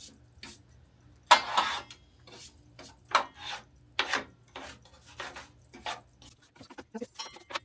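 Dust and debris being scrubbed off a table saw, with a string of uneven rubbing strokes about two a second. The loudest stroke comes about a second and a half in.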